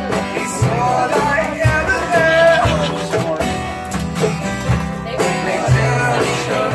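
Live acoustic music: guitars strummed and picked, with a voice singing a wavering, held melody through the middle.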